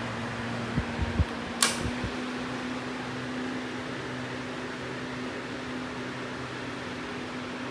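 10-inch Duoli rotary box fan running, a steady rush of air over a low motor hum. A few soft knocks and one sharp click come between about one and two seconds in.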